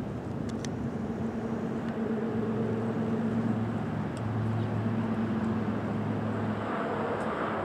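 A steady engine hum, with a deeper note coming in about two seconds in and dropping away near the end.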